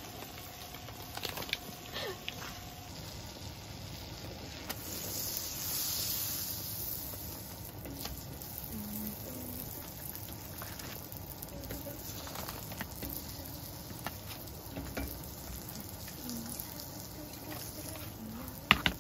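Butter sizzling on a griddle pan as hotteok, Korean sweet filled pancakes, fry in it; the sizzle gets louder about five seconds in. A couple of sharp clicks near the end.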